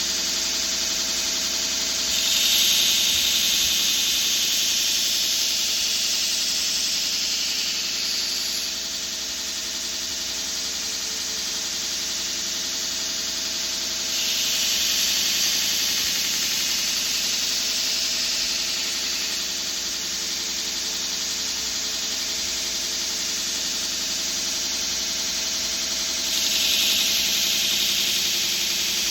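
A grinder running steadily while a steel knife blade is ground against it, with three louder, harsher passes of a few seconds each as the blade is pressed in.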